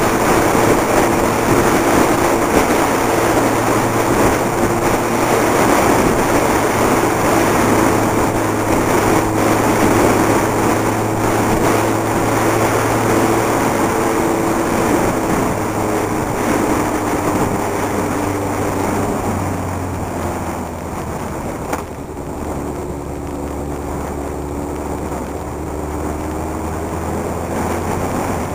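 Motorcycle engine running steadily under way, heard from the handlebars over heavy wind and road rush. About two-thirds of the way through, its note drops to a lower steady pitch and the sound gets somewhat quieter.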